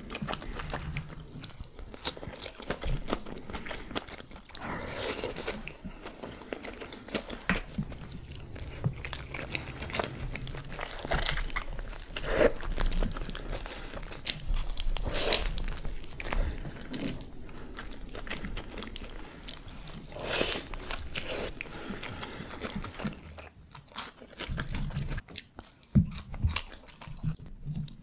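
Close-miked chewing and biting of a burger and chili cheese fries, with irregular smacks and clicks from the mouth.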